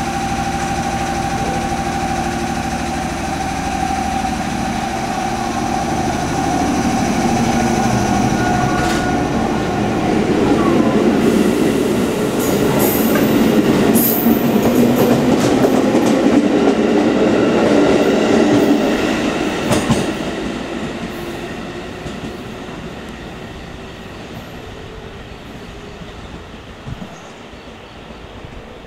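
A JR West 213 series electric multiple unit, two coupled sets, pulling out: it hums at a standstill, then a motor whine rises in pitch as it gathers speed. It grows loudest as the cars rush past with wheels clicking over the rail joints, then fades away as the train recedes.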